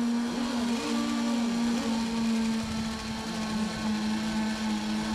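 Small engines of radio-controlled racing boats running after being started: a steady high-pitched hum whose pitch swings up and down now and then as they are revved.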